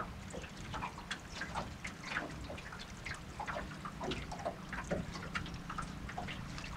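Small waves lapping and splashing against the hull of a fishing boat in quick, irregular slaps, over a low steady rumble.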